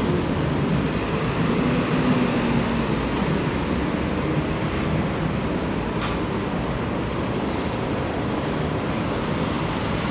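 Steady road traffic noise on a city street, with vehicle engines running.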